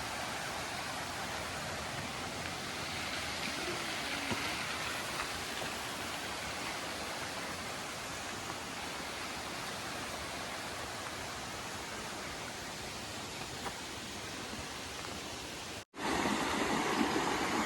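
Waterfall rushing steadily, an even wash of falling water. About sixteen seconds in the sound cuts out for an instant, and a somewhat louder rush of creek water follows.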